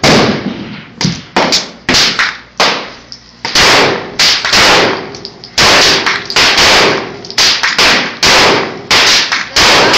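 Gunshots from a semi-automatic pistol: a long, irregular string of about twenty sharp shots, each with a short ringing tail. Some shots are much louder than others, with the loudest coming in the second half.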